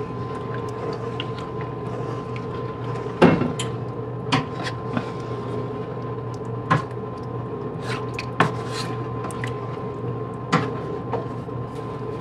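Wooden spoon stirring a thick creamy filling in a skillet, scraping and knocking against the pan in sharp taps every second or two; the loudest tap comes about three seconds in. A steady low hum runs underneath.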